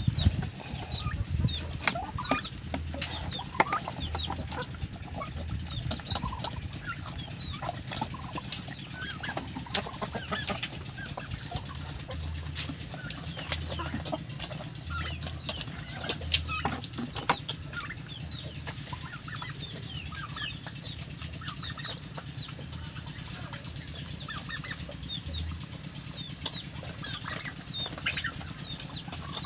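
A flock of chickens feeding: many short clucks and high calls throughout, with scattered sharp clicks as the birds peck at the feed.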